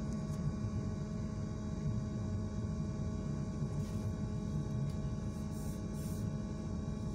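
Cabin sound of a BKM 321 trolleybus: a steady low rumble with an electrical hum of several fixed tones.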